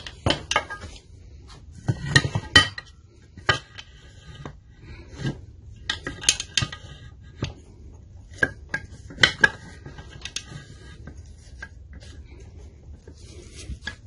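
Irregular hammer blows and metallic clanks, some ringing briefly, as a stuck piston and connecting rod are knocked out of a Briggs & Stratton engine's cylinder. The blows come in clusters and thin out near the end.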